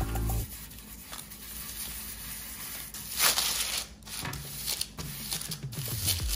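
Hands rubbing and smoothing parchment paper lining a baking tray, a crinkling rustle with one louder crinkle about three seconds in.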